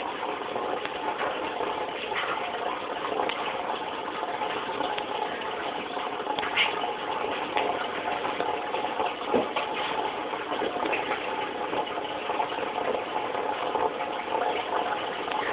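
Turtle tank's filter running: a steady splash and trickle of water with a faint hum, and a few small clicks over it.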